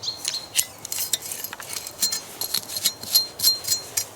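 Light metallic clinks and taps, irregular, several of them ringing briefly at a high pitch, as metal gear is handled.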